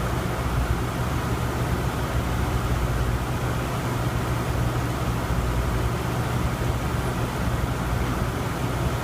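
Steady low rumbling background noise with a hiss over it, unchanging and with no breathing rhythm or separate sounds.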